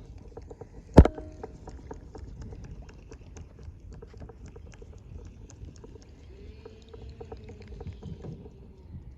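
One sharp, loud knock about a second in, as of something striking the boat, followed by light, irregular clicking and tapping over a low rumble.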